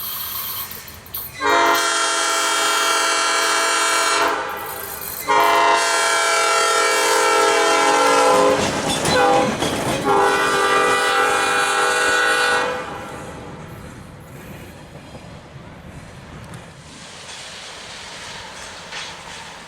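Horn of a Baldwin S12 diesel switcher locomotive blowing a chord, first a blast of about three seconds, then after a short pause a longer sounding broken by brief dips, for about eleven seconds in all. After the horn stops, a lower rumble of the train moving on the rails is left.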